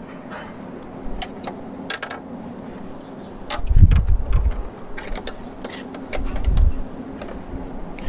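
Metal latches clicking and a sheet-metal duct cover rattling as it is unlatched and lifted off an air-conditioning unit's return-air inlet, over a steady low hum. Two loud low rumbles come about halfway through and again a little later.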